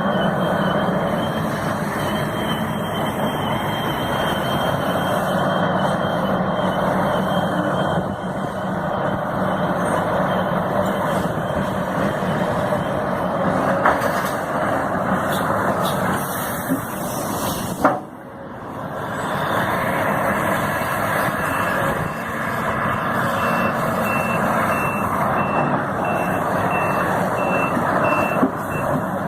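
Heavy construction machinery running steadily, with a reversing alarm sounding a regular series of short beeps in the last few seconds. The sound drops out briefly about two-thirds of the way through.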